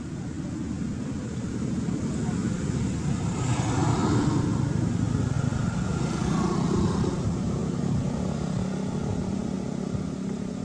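A motor engine running steadily as a low rumble. It grows louder about three seconds in and eases off again after about seven seconds.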